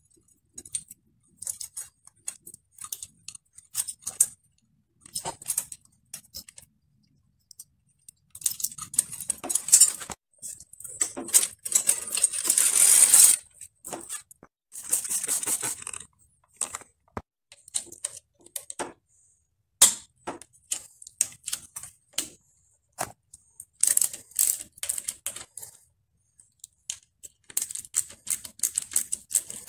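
A bicycle chain and drivetrain parts being handled on a repair stand: irregular metallic clicks, clinks and chain rattles, with several longer bouts of steady rattling.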